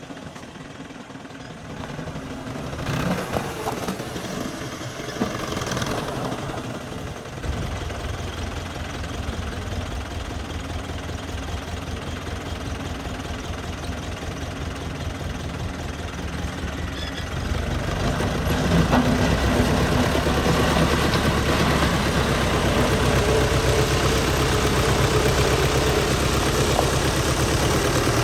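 Fiat 640 tractor's diesel engine running, getting louder about a quarter of the way in and louder again about two-thirds through as the tractor works its hydraulic front blade through gravel.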